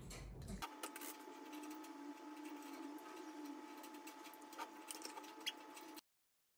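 Faint steady hum in a small room, with a few light clicks of metal spoons against a glass honey jar as honey is spooned out. The sound cuts off abruptly near the end.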